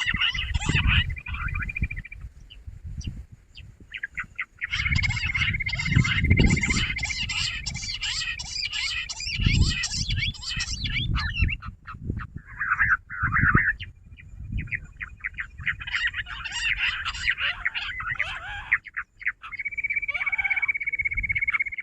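Jungle bush quail calling in bouts of rapid, dense chattering, over a steady high-pitched tone. Low rumbling bumps on the microphone come and go underneath.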